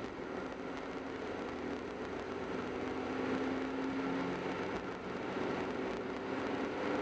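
Car being driven along a road: steady tyre and road noise with the engine's hum underneath, its pitch shifting about four seconds in.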